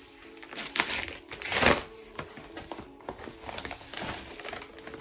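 A paper padded envelope crinkling and rustling as a hand reaches inside and pulls a notebook out, with two louder rustles about one and one and a half seconds in.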